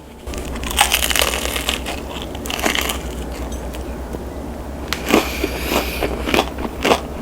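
Crunching and crackling of crispy BHC Bburinkle fried chicken being bitten and chewed close to the microphone, with dense sharp crackles starting just after the beginning and again in the last couple of seconds.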